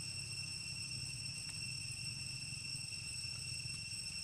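Steady high-pitched insect drone, with a constant low hum underneath.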